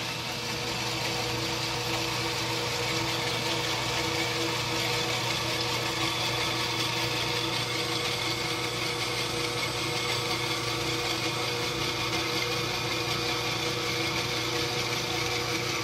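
Dayton horizontal band saw running steadily with its blade cutting through an aluminum T-slot extrusion: an even machine hum with a few held tones and a high hiss.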